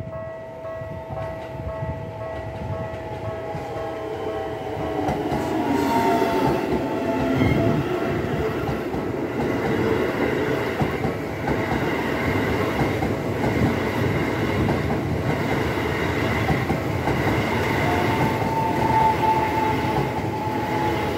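Japanese level crossing warning bell ringing steadily while a Keisei train runs over the crossing. The rumble and wheel clatter build from about five seconds in and stay loud, with a whine gliding in pitch about six seconds in and again near the end.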